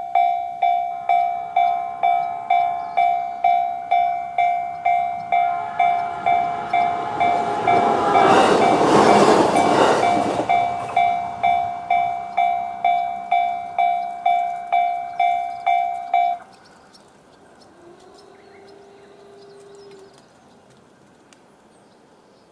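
Japanese railway crossing alarm ringing in the JR standard electronic tone, a repeating tone about twice a second. An E129-series electric train passes over the crossing about 8 to 11 seconds in. The alarm cuts off about 16 seconds in, followed by a low hum lasting about two seconds.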